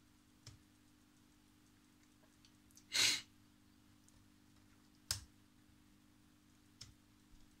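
A few sharp clicks from the President Jackson CB radio's control switches being turned, which changes the reading on the frequency counter, over a steady low hum. About three seconds in there is a short breathy rush, like a sigh, the loudest sound.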